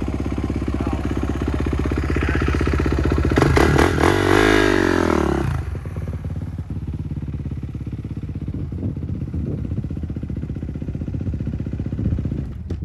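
2019 Kawasaki KX450's single-cylinder four-stroke engine running. Its pitch climbs to a peak about four to five seconds in, falls back, then holds at a lower steady note before dropping away near the end.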